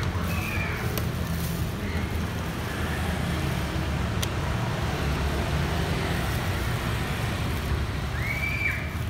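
Street traffic noise: a steady low rumble of passing motor vehicles, with a couple of faint clicks.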